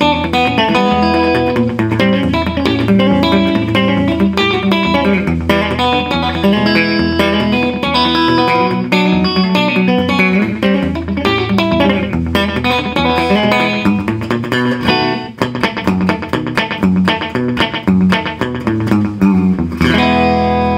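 Gretsch hollow-body electric guitar Travis-picked with a thumb pick: a steady alternating thumb bass under a picked melody, played through an amp with tape-echo slapback. About 15 seconds in the playing briefly drops out, then turns choppier.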